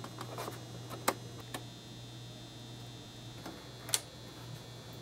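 A few sharp plastic clicks and taps as the battery compartment cover is fitted back onto the underside of a 1/6-scale Hot Toys Tumbler model, over a faint steady hum.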